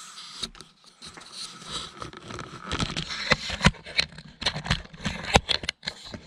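Footsteps crunching and scraping on loose brick rubble, with irregular sharp knocks of brick and debris as someone climbs through a narrow opening into the base of a brick chimney. The knocks come thicker and louder in the second half.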